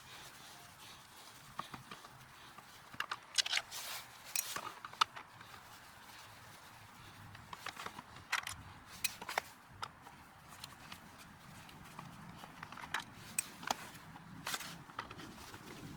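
Phillips screwdriver backing small screws out of a mobility scooter's plastic shell: faint, irregular clicks and light scrapes of the bit and screws.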